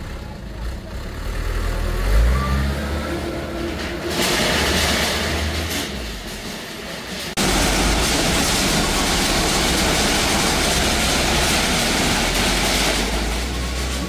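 Dump truck engine running, revving up with a rising pitch about two seconds in. About seven seconds in the sound changes abruptly to a louder, steady rushing noise with the engine rumble underneath.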